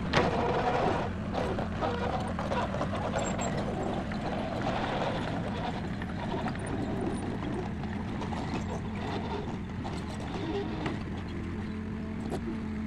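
Heavy diesel engine running steadily at a constant pitch, with a sharp knock at the very start and some clattering early on.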